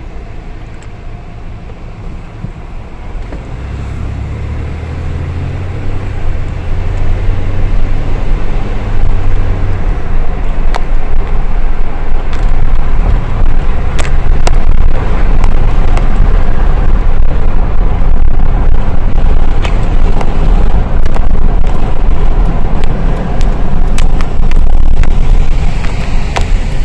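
Low rumble of a moving car, heard from inside. It builds over the first few seconds as the car gets going, then holds steady, with scattered light clicks.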